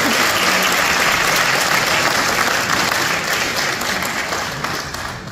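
Audience applauding in an auditorium, dying down near the end.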